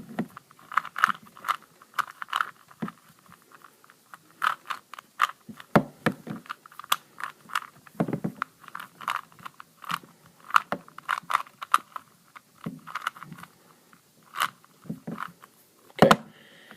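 3x3x3 Rubik's cube being scrambled by hand: quick plastic clicks and clacks of the layers turning, in irregular flurries with short pauses.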